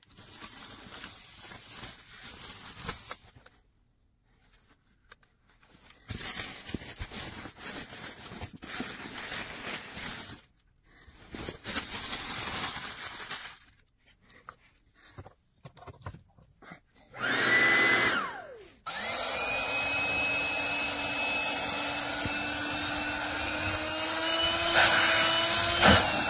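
Rustling and handling of packaging and fabric in short stretches, then an electric air pump switches on with a falling whine, and after about 19 s it runs with a steady hum, inflating the air mattress, its pitch creeping slightly upward.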